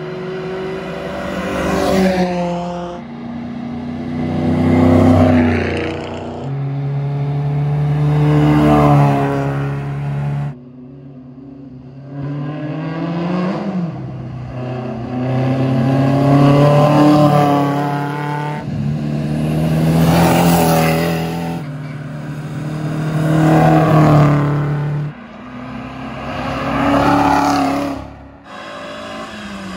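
Race cars accelerating hard past one after another, about seven in a row, each engine revving up through its gears as it swells in and fades away.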